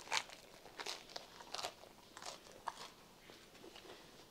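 Crust of a fresh baguette crunching as it is bitten and chewed, a run of short crisp crackles in the first three seconds, then fainter chewing.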